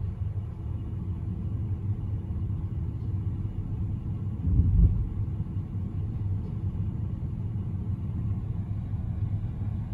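Low, steady engine rumble heard from inside a pickup cab while a crane's lifting magnet hoists steel well casings out of the bed, with a single low thud about halfway through.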